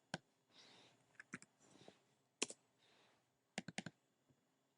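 Faint clicks of a computer mouse and keyboard: a few single clicks, then a quick run of four about three and a half seconds in, with soft rustles between.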